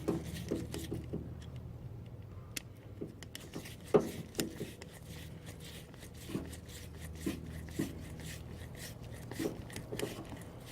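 Scattered small clicks and knocks of hands handling a fuel filter, rubber fuel hose and hose clamps, the loudest about four seconds in, over a steady low hum.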